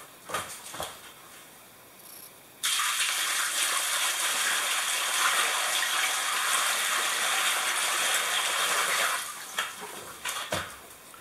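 Water poured from a bucket into a shower pan, splashing steadily for about six seconds; it starts abruptly a few seconds in and tapers off near the end, filling the pan for a flood test. A few light knocks come before and after the pour.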